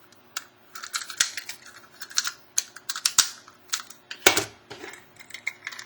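Small metal clicks and rattles of a combination padlock and bobby pin being handled, irregular, with one louder click a little past four seconds in.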